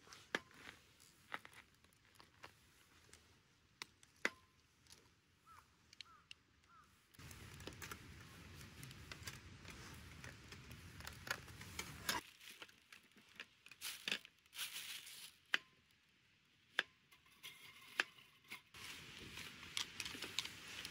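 Kitchen knife slicing zucchini on a wooden cutting board: irregular sharp taps of the blade striking the board. A soft steady noise comes in about a third of the way through, fades a few seconds later, and returns near the end.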